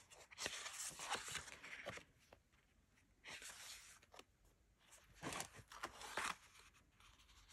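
Sheets of paper being handled, rustling and crinkling in three short bouts with pauses between.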